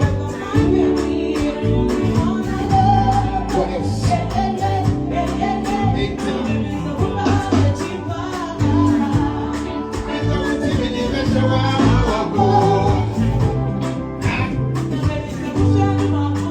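A band playing a song with a steady beat, bass and chords, with singing over it.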